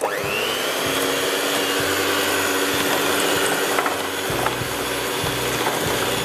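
Handheld electric mixer switched on, its motor whining up to speed within a moment and then running steadily as the beaters cream butter and sugar in a glass bowl.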